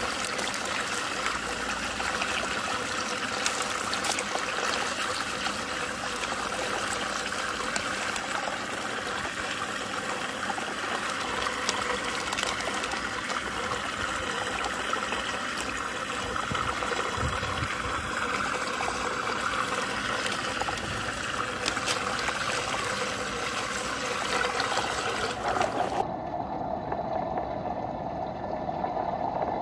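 Steady running, trickling water, with a few brief crackles. About 26 seconds in it switches suddenly to a duller, muffled underwater rush of a whirlpool vortex draining down a pool drain.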